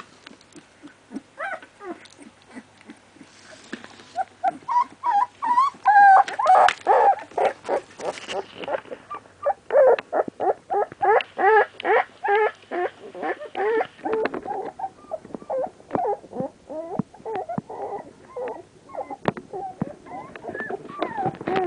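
Three-week-old American Staffordshire Terrier puppies whimpering and squealing: a run of short, high calls in quick succession, loudest around the middle.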